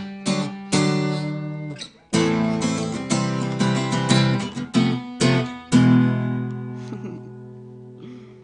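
Solo acoustic guitar strumming the closing bars of a song. The last chord, about six seconds in, rings out and fades away.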